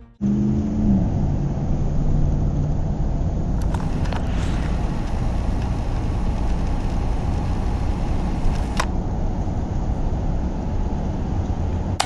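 Car driving on the road, heard inside the cabin: a steady low rumble of engine and tyre noise, with the engine note falling in pitch in the first second or two. A few short clicks or knocks come about four seconds in and again near nine seconds.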